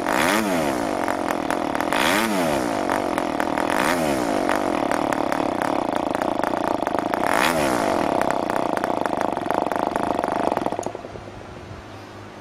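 PAW 40 model diesel (compression-ignition) engine running at full speed on a bench test stand, turning a 12x5 propeller on break-in fuel, then cutting out near the end, leaving only a faint hiss.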